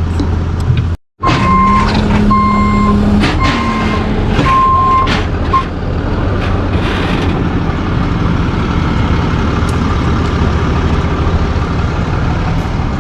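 Tow truck's backup alarm beeping about once a second, five beeps, over its engine running steadily; the beeping stops a little past halfway, and the engine keeps running.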